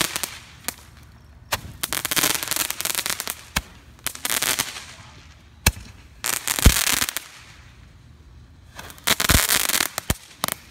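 Consumer fireworks firing a series of shots: sharp pops and bangs, several of them followed by about a second of dense crackling hiss, about half a dozen in all.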